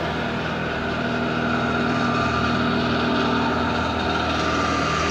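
A motor vehicle engine idling steadily: a low, even hum with a faint steady whine above it.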